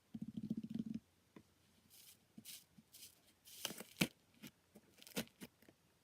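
Slime being handled up close for ASMR: a short buzzy, rattling squish in the first second, then scattered soft crackles, pops and clicks.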